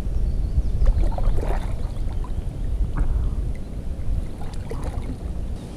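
Kayak paddle strokes in the water, with splashes and drips, over a steady low rumble; the sound drops off sharply near the end.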